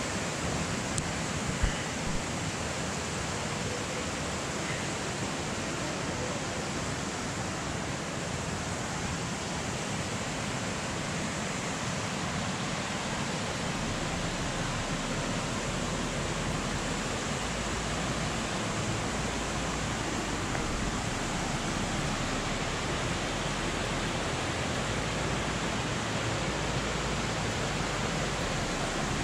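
Small clear mountain stream tumbling over little cascades: a steady rush of water, with two brief knocks about two seconds in and a low rumble joining about halfway through.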